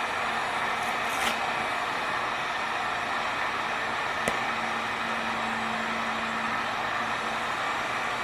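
Heat gun running steadily, an even blower rush with a faint hum, warming the vinyl graphic so it can be stretched around a corner. A single short click about four seconds in.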